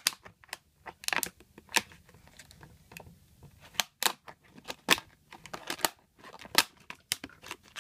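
Scissors snipping through a rigid clear polypropylene takeaway container: a string of sharp, irregularly spaced snips and clicks of the plastic as it is cut into pieces.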